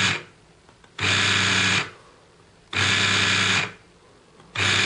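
Scalextric slot car's small electric motor and drive gears running in short bursts of about a second each, switched on and off about every two seconds, with a hum under a high whine.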